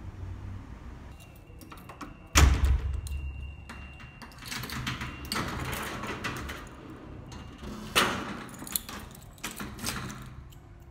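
A front door and metal security gate being opened and shut: a heavy thud about two seconds in, then clicks and rattles of the lock, handle and keys, with another sharp knock near eight seconds.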